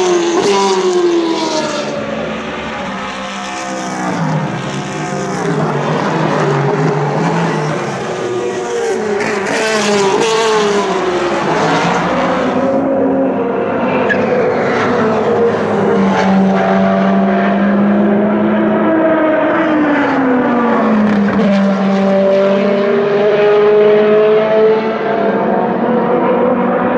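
Endurance race cars passing one after another at speed, starting with a Ferrari 458 GTE. Each engine's high, pitched note falls away several times as cars go by, and some hold a steady pitch for a few seconds.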